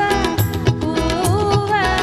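Live band playing a Tamil film song, with a singer's voice carried over a steady drum beat, bass and keyboards through the hall's PA.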